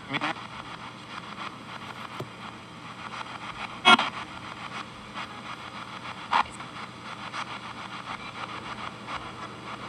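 P-SB7T spirit box sweeping through FM stations, played through a noise-killer pedal and a small Esteban G-10 guitar amp: steady radio static broken by short snatches of broadcast sound, the loudest about four seconds in.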